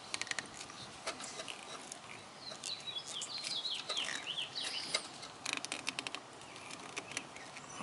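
Scattered small clicks and rattles of a hand fumbling at a plastic wiring connector on a lawn tractor's relay, trying to unplug it. In the middle, a bird sings a quick series of short, high, falling chirps.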